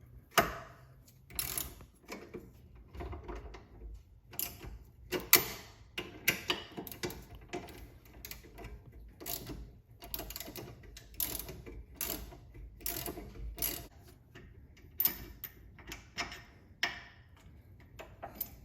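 Socket ratchet clicking in irregular runs of strokes, with sharp metallic clicks and knocks, as it turns the nut of a sway bar end link.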